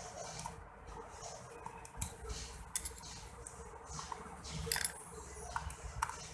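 Small clicks and clinks of a screwdriver and a small screw being fitted into the plastic casing of an electric mosquito bat during reassembly: scattered sharp ticks, the loudest about two-thirds of the way through.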